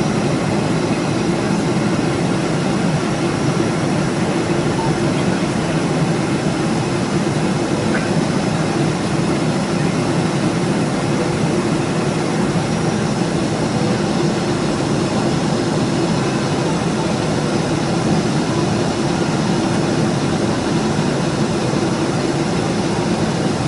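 Steady engine and airflow noise of a Boeing 777 heard from inside the passenger cabin, an even low rumble with a hiss above it that holds level throughout.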